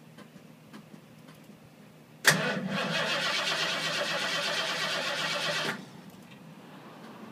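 Starter cranking the 1986 Ford F-250's engine for about three and a half seconds, then stopping abruptly without the engine catching. The truck has sat unused and is hard to start.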